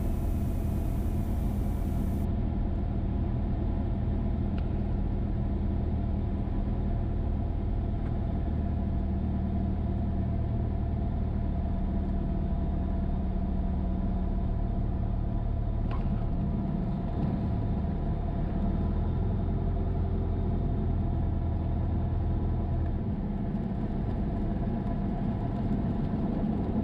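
Cessna 172's engine and propeller running steadily at low power through the landing and roll-out, heard from inside the cockpit; the low engine hum drops lower near the end as the aircraft slows on the runway.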